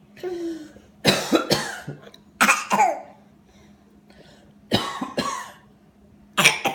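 A woman and a child coughing in turn, the child copying the woman's coughs: four short bouts, each of two quick coughs.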